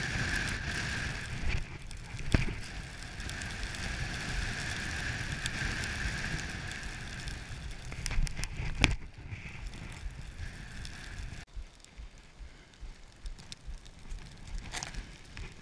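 Snowboard sliding over snow, a steady hiss with sharp knocks from bumps about two and nine seconds in. It quietens about eleven seconds in, leaving small scrapes and ticks.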